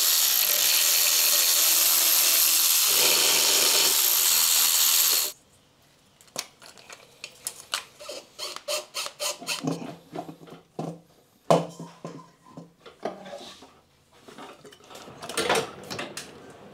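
Handheld power tool running steadily for about five seconds, then stopping abruptly, during intake manifold removal on an engine. Afterwards come scattered clicks and knocks of tools and metal parts being handled.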